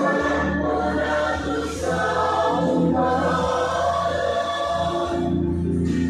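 Background music: a choir singing long held notes over a steady low bass tone.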